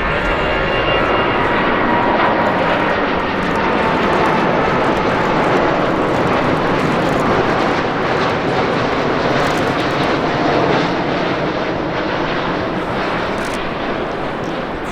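Jet airliner's engines running loud and steady as it passes, with a faint whine sliding slightly lower in the first few seconds and the sound easing a little near the end.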